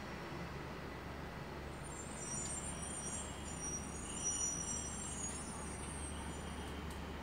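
City street traffic: a steady rumble of engines and tyres, with a high squeal for a few seconds in the middle.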